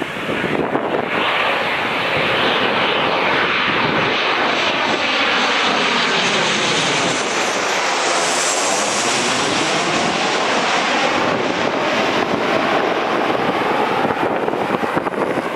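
Boeing 737-800's CFM56-7B turbofan engines passing low overhead on final approach to land: a loud, steady jet rumble with a sweeping, whooshing change in tone that is sharpest as the airliner goes directly overhead about halfway through.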